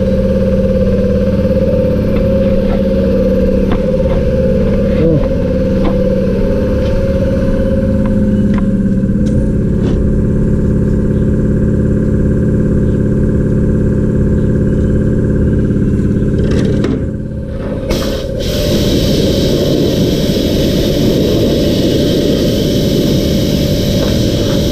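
A motor running steadily, with a loud rushing hiss joining it about eighteen seconds in and carrying on to the end.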